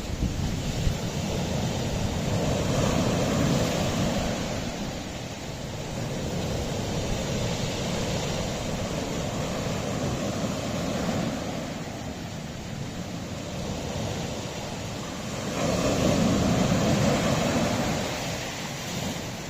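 Sea waves washing against a rocky shore, a continuous rushing roar that swells twice as waves break, with some wind buffeting the microphone.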